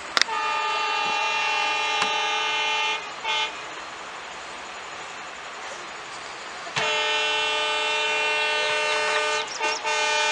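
Diesel locomotive horn: a long blast of about three seconds and a short toot, then after a gap of about three seconds another long blast followed by two or three short toots. A steady noise runs underneath between the blasts.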